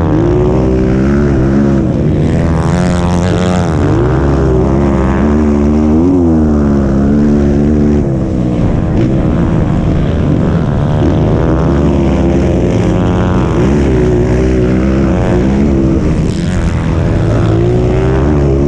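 Honda CRF230 dirt bike's air-cooled single-cylinder four-stroke engine heard from on board, revving up and dropping back again and again with throttle and gear changes under race load.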